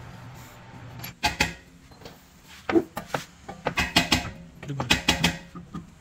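Metal clinks and knocks of car brake parts and a road wheel being handled by hand during reassembly of a front disc brake: a pair of sharp knocks a little over a second in, then a run of clinks in the second half.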